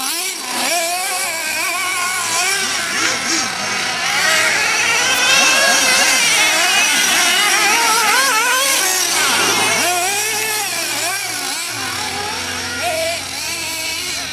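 Small .21 nitro engine of a 1/8-scale Losi RC buggy revving up and down as the buggy is driven, its pitch rising and falling constantly. It is loudest in the middle as the buggy runs close.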